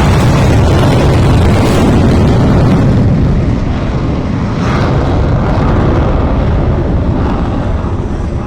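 Fighter jet engines running loud during take-off, a heavy rumbling roar. About three seconds in the highest part of the noise drops away and the sound eases slightly as the jet pulls away.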